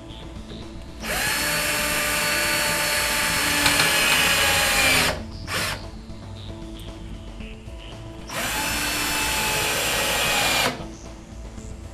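Power drill driving screws through a metal drawer slide into a wooden cabinet side: two steady whirring runs, the first about four seconds long followed by a brief tap of the trigger, the second about two seconds long.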